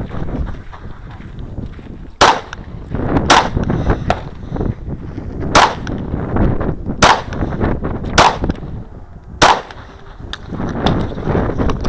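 Six 9mm pistol shots from a Kahr CW9, fired singly at uneven intervals of one to two seconds, with the rustle and shuffle of the shooter moving between them.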